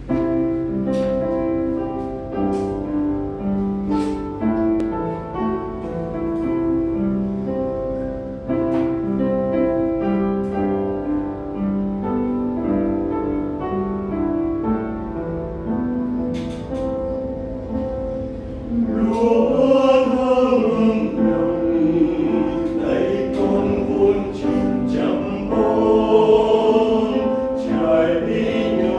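Piano playing a hymn introduction alone, then about two-thirds of the way in a mixed choir comes in singing in Vietnamese over the piano accompaniment, and the sound grows louder.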